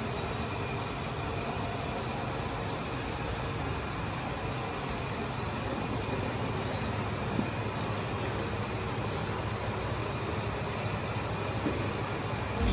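Diesel railcar running along the line, a steady rumble and hiss of engine and wheels on rail.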